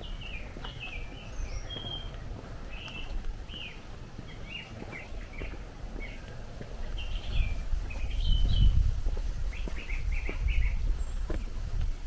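Songbirds chirping and singing in short repeated notes, over footsteps crunching on a gravel path. A low rumble swells in the second half and is the loudest sound.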